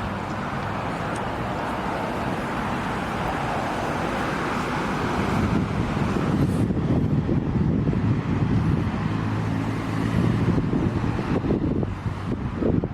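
Road traffic: vehicle engines running with a steady low hum and passing tyre noise, growing louder past the middle with two swells, about halfway and near the end.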